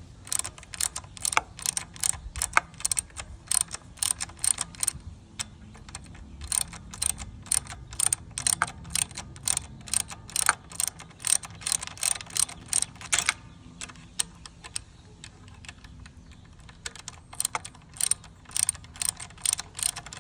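Socket ratchet with a T25 Torx bit clicking rapidly, about three clicks a second, as the loosened brake-pedal bolts are backed out; the clicking stops for a few seconds about two-thirds of the way through, then resumes.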